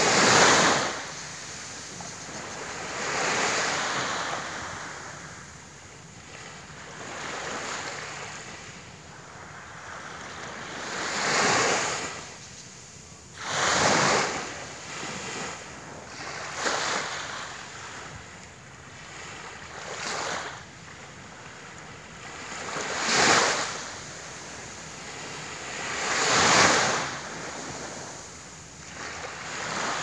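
Small sea waves breaking and washing up onto a sandy beach: a rush of surf every few seconds, with a quieter wash between.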